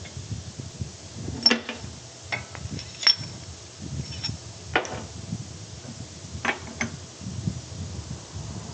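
Metal tools and parts clinking and knocking: about six separate sharp strikes, a few with a brief high ring, over a low rumble.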